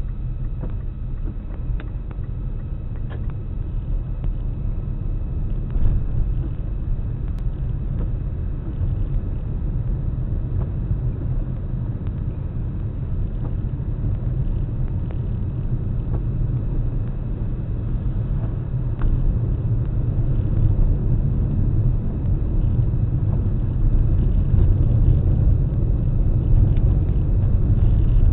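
Car driving along a road, heard from inside the cabin: a steady low rumble of engine and tyre noise that grows a little louder in the last few seconds.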